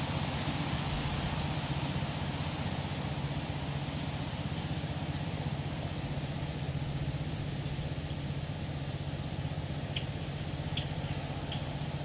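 Steady low rumbling hum with a haze of outdoor background noise. A few short, high chirps come in near the end.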